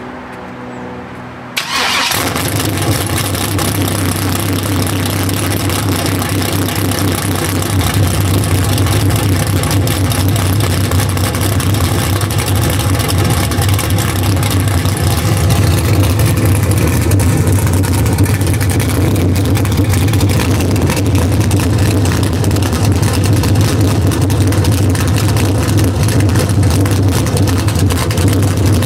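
1999 Chevrolet Camaro SS's 5.7-litre LS1 V8 starting up about two seconds in, then idling steadily through its exhaust.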